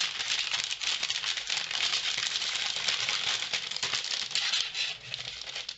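Crinkling and rustling of a clear plastic sleeve and a stack of iridescent embossed paper sheets being handled, a dense crackle that eases briefly about five seconds in.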